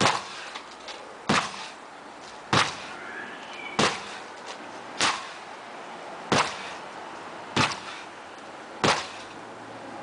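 Sledgehammer strikes landing at a steady pace, one about every one and a quarter seconds, eight in all: sharp, loud impacts.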